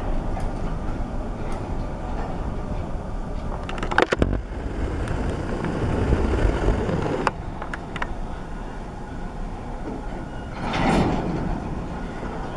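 Freight cars rolling slowly past during yard switching: a steady low rumble of wheels on the rails, with a few sharp metallic clanks about a third of the way in and another a little after halfway. A brief rush of noise comes near the end.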